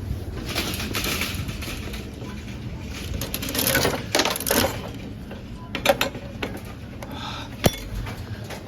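Coin-operated vending machine's crank mechanism being turned, ratcheting and grinding in two stretches, then a few separate clicks with one sharp click near the end.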